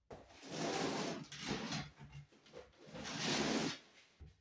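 Two stretches of scraping, rustling handling noise: the first lasts about a second and a half, the second about a second.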